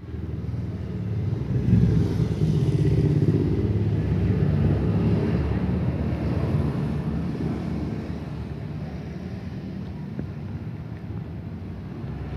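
Road traffic: a motor vehicle engine running close by, a steady low rumble that grows louder about two seconds in and slowly eases off.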